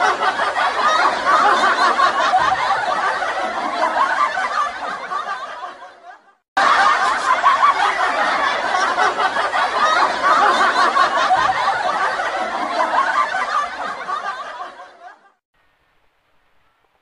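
Laugh track of laughter, added in editing. It fades out about six seconds in, cuts back in abruptly, and fades away again a couple of seconds before the end.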